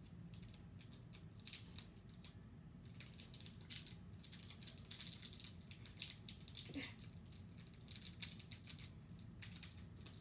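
Wrapping of a Pokémon card pack crinkling and rustling faintly in irregular bursts as it is picked at by hand in a failed attempt to open it.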